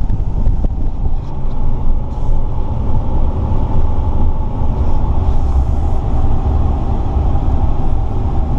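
Steady low rumble of road and engine noise inside the cabin of a moving vehicle.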